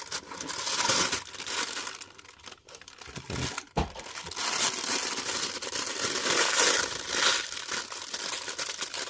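Action-figure packaging crinkling and rustling as it is handled and pulled apart to get the accessories out, in two long stretches with a lull about three seconds in.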